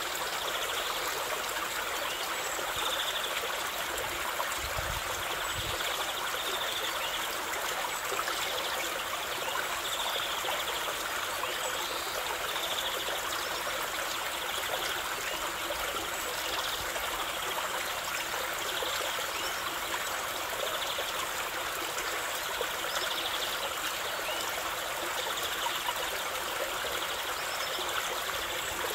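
A rocky mountain stream rushing over small cascades between boulders: a steady, even rush of water with no change in level.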